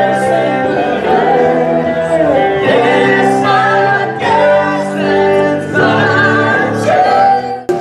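Live band performing: a singer holding long sung notes over electric guitars. The music breaks off abruptly near the end.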